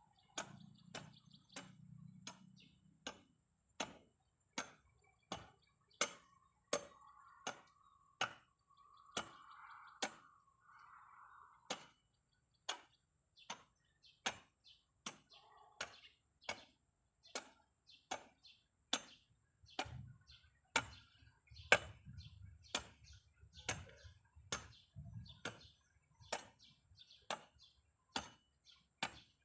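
Rhythmic chopping strikes, roughly one every three-quarters of a second, coming a little faster in the second half.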